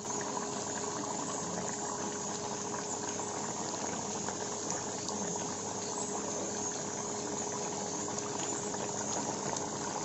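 Pot of pork and chicken curry bubbling on the heat: a steady, dense simmering crackle, with a faint steady hum underneath.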